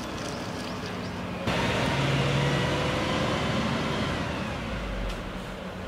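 Engine of a zoo safari bus running close by, louder from about a second and a half in.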